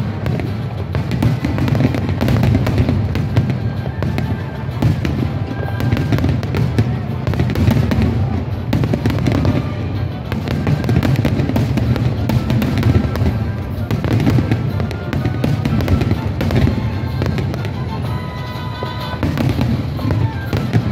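Fireworks display in a rapid, continuous barrage: many shell bursts close together over a constant low rumble, with music playing along.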